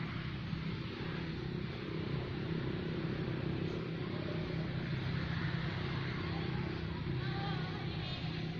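A steady low hum, like a motor running, under a constant outdoor noise, with a few faint, short chirping calls near the end.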